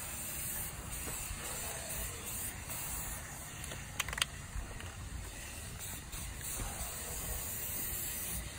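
Aerosol spray-paint can hissing as paint is sprayed in steady passes, with a couple of short clicks about four seconds in.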